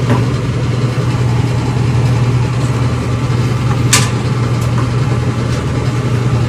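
Steady low hum of a running frozen food display case, its fan motors running, with one sharp click about four seconds in.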